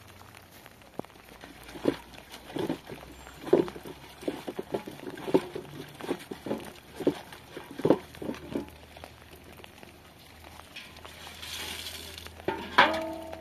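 Water sloshing and splashing in a metal basin as a cloth is washed and wrung by hand, in a series of short, uneven splashes. A short pitched call is heard near the end.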